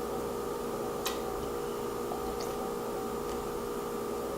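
Steady electrical hum over faint room hiss, with one small click about a second in.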